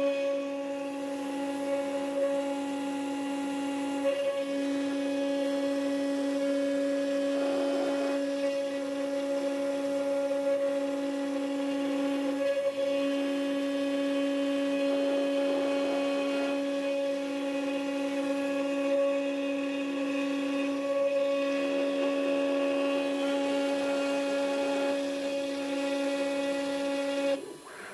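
The 800 W spindle of a mini four-axis CNC router running with a steady whine as its engraving bit cuts into an aluminium cylinder turning on the rotary axis, with a hiss of cutting over the whine. The sound dips for a moment just before the end.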